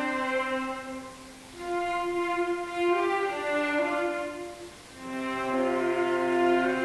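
Solo cello and string quartet playing long, held bowed notes in three phrases, each phrase fading almost away before the next comes in, about a second and a half in and again just before five seconds.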